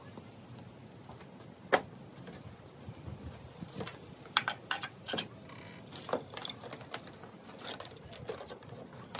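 Irregular clicks, knocks and rustling of objects being handled and rummaged through in boxes and plastic bins. One sharp knock a little under two seconds in is the loudest, and a quick run of clicks follows about four to six seconds in.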